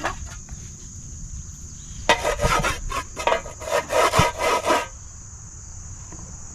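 Quick rough scraping and rubbing strokes, several a second, from about two seconds in until about five seconds in: something being rubbed into gritty pretend 'salt' during play cooking. A steady high insect hum runs underneath.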